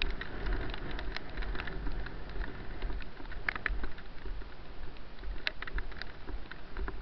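Low buffeting rumble and scattered crackles from a body-worn camera as its wearer walks across wet grass.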